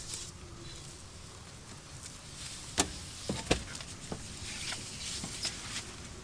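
A few short, sharp knocks and clicks over a faint steady background, the loudest two about three seconds in.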